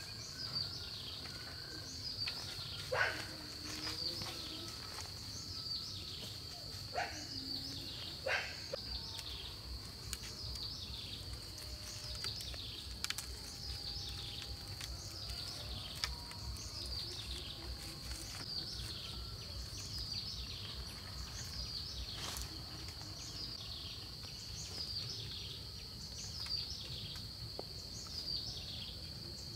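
Forest insects keep up a steady high-pitched drone, with a short falling chirp repeated about once a second. A few sharp knocks come through, three in the first nine seconds and one about two-thirds of the way in.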